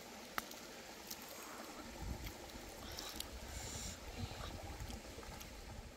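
Hands tearing apart a grilled catfish's skin and flesh: soft crackling and tearing with a few sharp clicks, over a steady background hiss.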